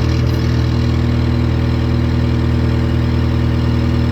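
Case SR175 skid steer loader's diesel engine idling steadily.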